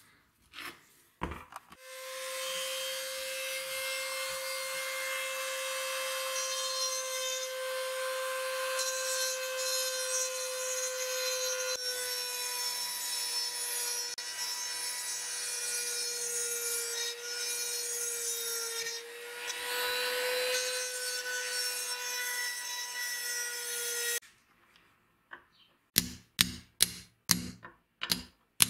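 A drill runs with a steady whine while its bit cuts into the head of an iron rivet on the corking machine's lever bar, the pitch sagging a little under load, then stops. Near the end comes a hammer tapping on a punch, about two or three sharp knocks a second, driving the drilled rivet out.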